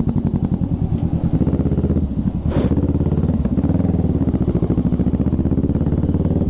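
Kawasaki 650 parallel-twin motorcycle engine running at low speed with a steady pulsing exhaust beat, heard from the rider's seat. A short hiss cuts in briefly about two and a half seconds in.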